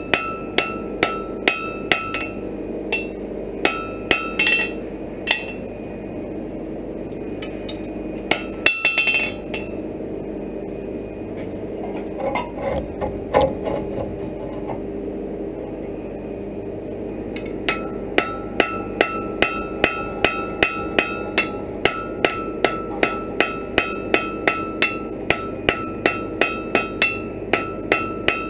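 Hand hammer forging a hot iron bar on a steel anvil: steady blows about three a second, each with a ringing note. The hammering stops for about twelve seconds in the middle, with only a few scattered knocks, then resumes for the last ten seconds.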